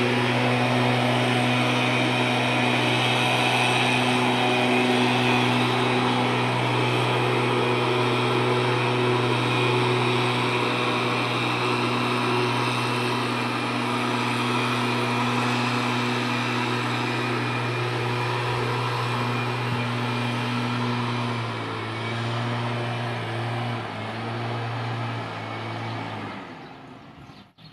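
An engine running steadily with a constant low hum, wavering and dropping off in the last few seconds.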